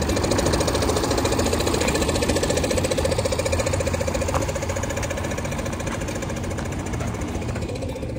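Old red farm tractor's engine running as it drives off pulling a trailer, a steady rapid knocking beat.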